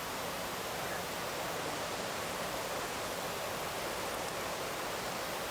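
Steady, even hiss with no distinct events, like the noise floor of the recording.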